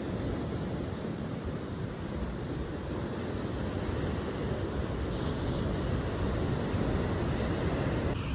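Ocean surf washing ashore, mixed with wind rumbling on the microphone: a steady, noisy wash that swells slightly toward the end.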